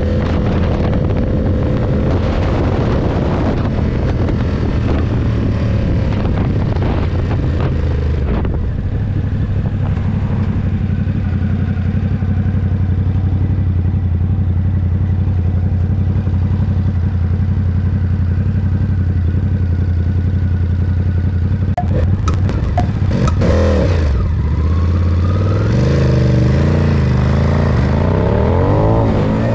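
Ducati SuperSport 939's L-twin engine running at a steady cruise, with wind noise on the microphone heaviest in the first several seconds. About 22 seconds in there is a short clatter of clicks, then the engine note drops and climbs again as the bike accelerates.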